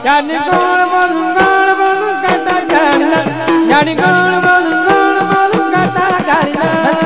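Marathi devotional gavlan music: a melody of held notes stepping up and down in pitch over a steady hand-drum beat.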